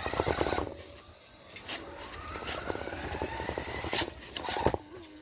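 Toy RC car's small electric motor whining as it speeds up, the pitch climbing steadily for a couple of seconds over a fast rattle from the gears and wheels, with a few sharp clicks.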